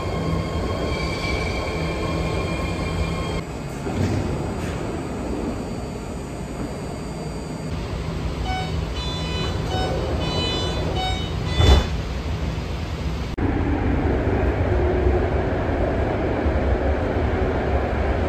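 BART Fleet of the Future train: a steady electric whine over a low rumble while it stands at the platform, then inside the car a run of short repeated chime tones, a single sharp thud of the doors shutting about two-thirds of the way through, and the louder steady rumble of the train running.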